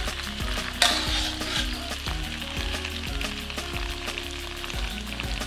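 Palm weevil grubs sizzling in a little oil in a wok over low heat while a slotted metal spatula stirs and scrapes them, with a sharp knock of the spatula against the wok about a second in.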